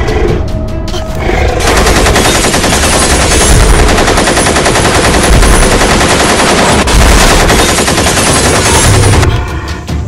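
Long burst of rapid gunfire, an action-movie sound effect, starting suddenly about one and a half seconds in and cutting off near the end, over a low rumble.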